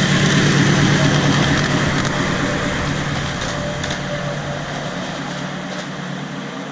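Ride-on miniature-railway diesel-outline locomotive passing close by on ground-level track: a steady mechanical drone, loudest about a second in, then gradually fading as it moves away.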